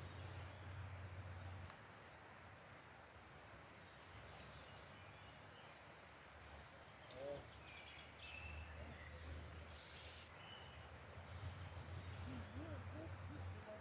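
Faint forest ambience: a high, thin insect trill repeating in short runs, with a few faint bird chirps and a low rumble that comes and goes.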